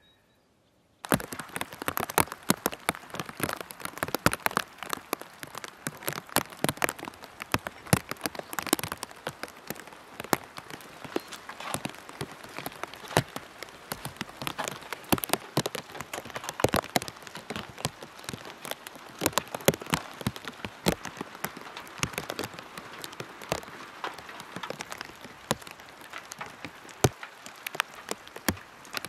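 Rain falling, with a dense run of sharp drops hitting hard surfaces over a steady wash, starting suddenly about a second in.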